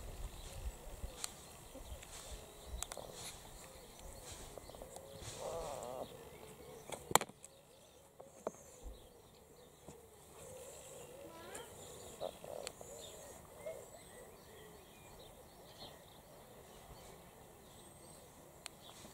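Quiet garden ambience with birds calling in the background and faint, short wavering squeaks. One sharp click comes about seven seconds in.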